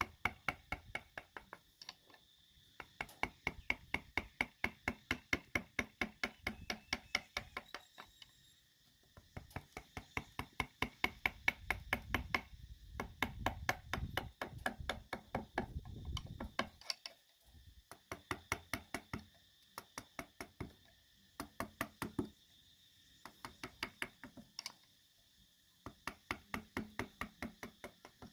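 Rapid, even taps of a mallet driving a carving chisel into hardwood, about four or five strikes a second, in runs of a few seconds with short pauses.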